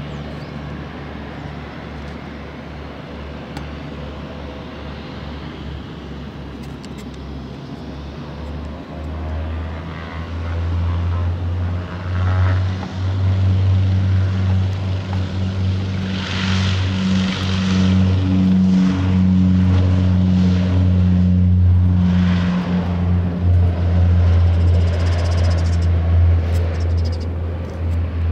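Twin-turboprop airliner's engines running up for takeoff. A steady engine hum swells about nine seconds in into a loud propeller drone with a deep steady tone as the aircraft rolls down the runway.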